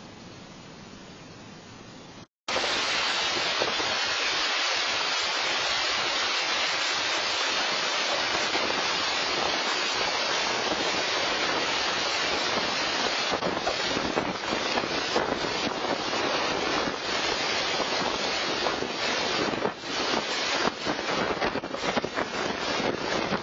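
Tornado wind and driving rain: a loud, constant rushing with wind buffeting the camera microphone, turning gustier and more uneven from about halfway. Before a brief cut near the start, only a quieter steady hiss of rain and wind.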